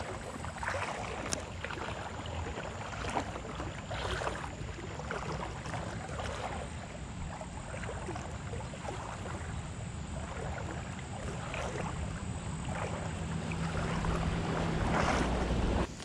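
Wind buffeting the microphone over the rush of a creek's current, with scattered small knocks and splashes. It grows louder over the last couple of seconds.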